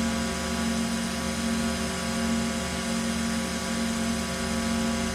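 TIG welding arc buzzing steadily while a bead is run, an even hum with no breaks.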